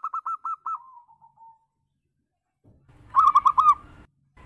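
Zebra dove (perkutut) cooing. A quick run of about five short, arched coo notes trails off into a fainter lower note. After a pause comes another run of four notes, and a third run begins at the very end.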